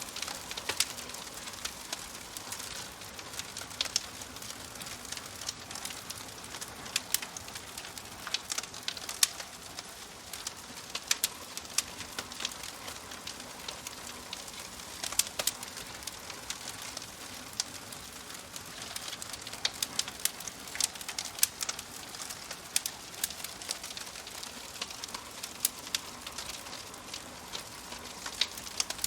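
Wood fire crackling: a steady soft hiss broken by frequent, irregular sharp pops and snaps.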